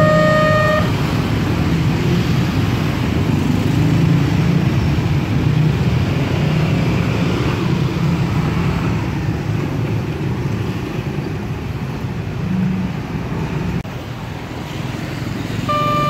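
Road traffic of motorcycles and cars running and pulling away over the railway level crossing. The crossing's electronic alarm tones cut off about a second in.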